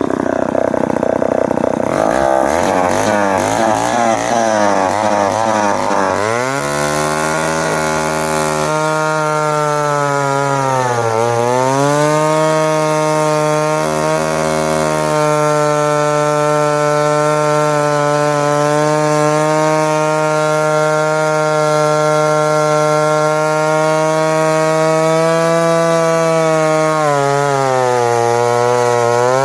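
Homelite Super Wiz 55 two-stroke chainsaw running near full throttle while cutting a log. It sounds uneven and wavering for the first few seconds, then holds a steady high pitch that sags and recovers about a third of the way in and again near the end.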